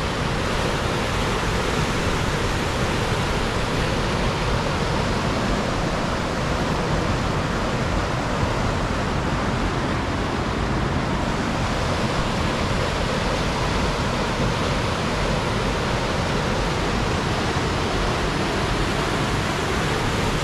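Steady rushing and churning of a class II whitewater rapid, river water pouring over and around rock ledges.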